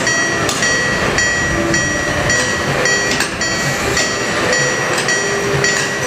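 Miniature railroad-crossing signal on a kiddie train ride ringing its 'kan-kan' warning bell, close to two even strikes a second, as the ride train crosses.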